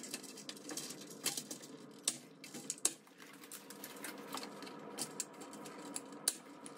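Irregular light clicks and taps of a vertical-blind head rail being handled and pressed into its mounting brackets, with a few sharper snaps among them.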